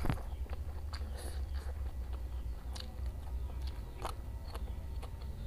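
Close-miked eating sounds: a sharp bite right at the start, then scattered crunches and small mouth clicks of chewing over a steady low hum.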